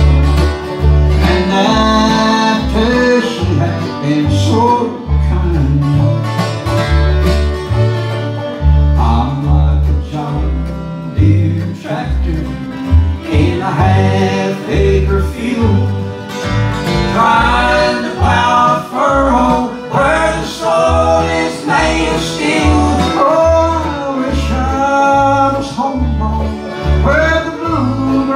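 Live bluegrass band playing: acoustic guitar, mandolin, five-string banjo, fiddle and upright bass, with the bass keeping a steady beat under the melody.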